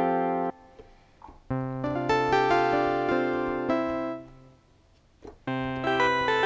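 Yamaha MX49 synthesizer keyboard playing a piano preset. A held chord cuts off about half a second in, then two more chords follow, each held a couple of seconds with short pauses between them.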